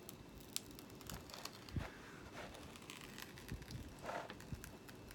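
Faint rustling and crinkling of a diamond painting's release paper being peeled back from the sticky canvas, with a few soft ticks and taps from handling; a slightly louder rustle about four seconds in.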